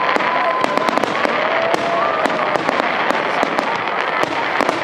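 Fireworks display at full barrage: many aerial shells bursting in rapid, overlapping bangs over continuous crackle.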